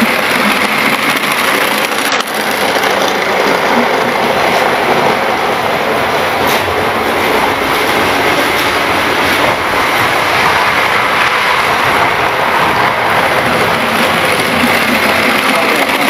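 Model electric train running round the layout track close to the microphone: a steady rattling whir of motor and wheels on the rails.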